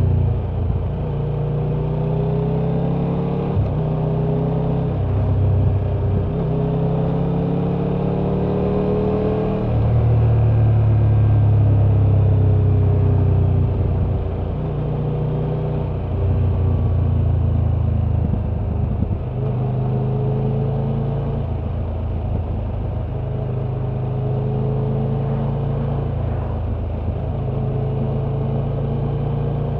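Triumph Tiger 1200's three-cylinder engine and exhaust heard from the rider's seat while riding, its pitch rising and falling with the throttle in stretches of a few seconds, loudest about ten to thirteen seconds in. A steady rush of wind and road noise runs under it.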